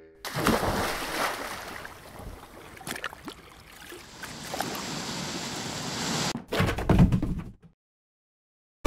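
Cartoon sound effects of rushing, sloshing sea water that start suddenly and wash on for several seconds. A louder, deeper burst comes near the end, then the sound cuts off.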